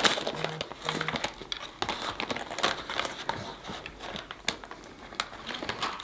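Close-miked eating: chewing and crunching of fried snacks, with paper trays and wrappers crinkling in scattered small clicks and crackles.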